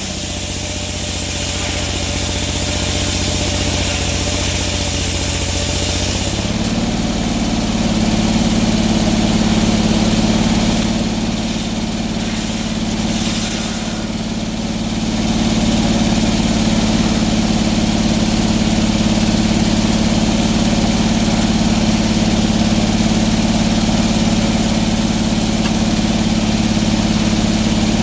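Sawmill engine running steadily; its note changes about six and a half seconds in.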